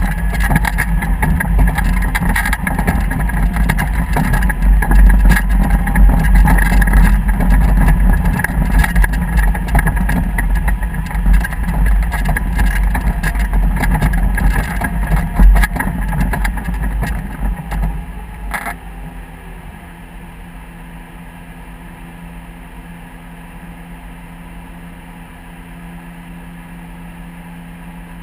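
Motorboat engine running under way, with wind rumbling on the microphone. About two-thirds through, the rumble drops away suddenly, leaving a quieter, steady engine hum.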